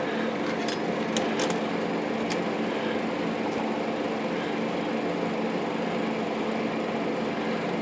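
Steady mechanical hum with a few faint level tones, with several light clicks in the first two and a half seconds as the typewriter's metal back panel is worked into place.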